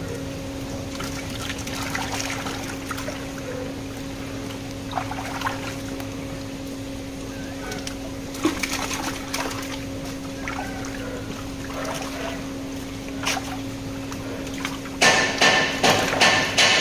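Water pouring and trickling into plastic tubs as catfish are sorted through plastic mesh grader baskets, with scattered splashes and light knocks, over a steady low hum. Music with a beat starts about fifteen seconds in.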